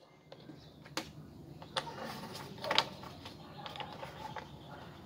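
A few light clicks and taps of draughts pieces being handled on the board, spread about a second apart, the loudest nearly three seconds in.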